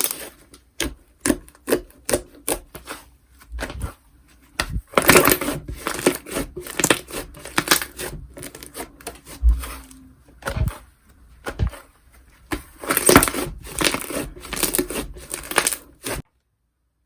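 Slime being squished and stretched by hand, giving bursts of rapid clicky crackling pops with short pauses between them. The sound cuts off abruptly about a second before the end.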